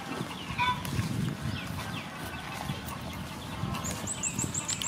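Birds calling: scattered short chirps and clucking. Near the end comes a quick run of about seven high chirps.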